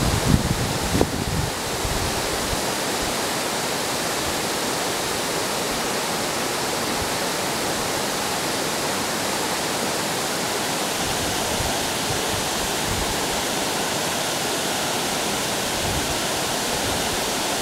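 Water pouring over an old mill dam spillway: a steady, even rushing, with a few low bumps in the first two seconds.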